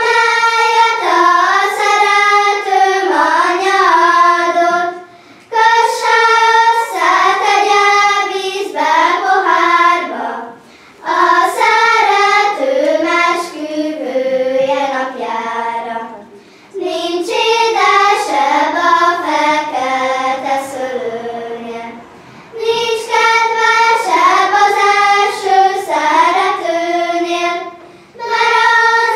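A class of young children singing a song together in unison, in phrases of about five to six seconds with short breaks for breath between them.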